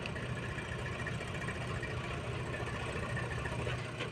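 Diesel engine of a heavy machine running steadily with an even low hum.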